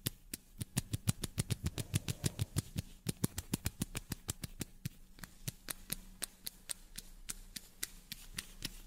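A rapid, irregular run of sharp clicks and taps, several a second, over a faint low hum.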